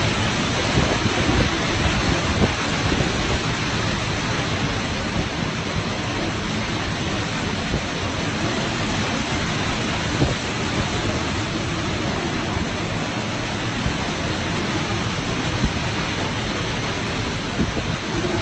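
Strong storm wind buffeting the microphone: a loud, steady rushing noise with a choppy low rumble.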